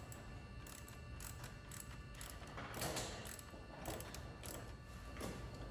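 Scattered small metal clicks and scrapes of hand work at a car's 12-volt battery terminal as a wire's ring terminal is worked onto the post, under faint background music.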